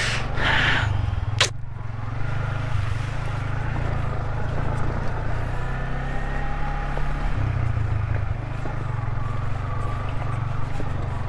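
Yamaha Vixion motorcycle's single-cylinder engine running steadily under way, with a few rattles in the first second and a sharp knock about a second and a half in.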